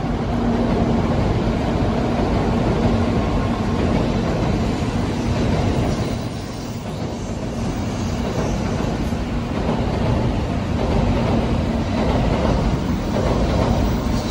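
Tokaido Shinkansen N700-series bullet train passing on the elevated concrete viaduct overhead. Its wheels and running gear make a continuous rumble with a steady low hum, dipping briefly about halfway through.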